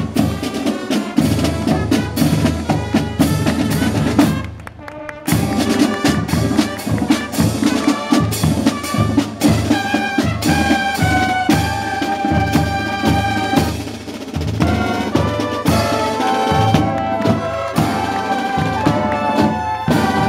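Marching band playing: brass holding long notes over a steady drum beat, with a short drop in level about four seconds in.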